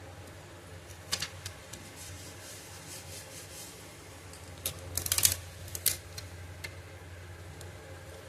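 Small sharp clicks and taps from handling a laptop RAM module seated in its slot inside the opened laptop: a few clicks about a second in and a quick run of clicks around five to six seconds in, over a faint low hum.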